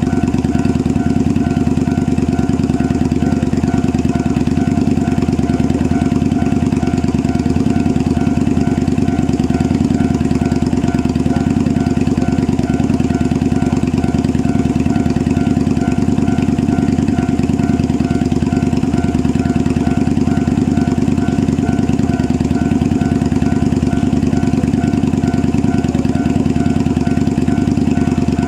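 KiHa 47 diesel railcar engines idling steadily. Over them a level-crossing alarm rings in an even, repeating ding.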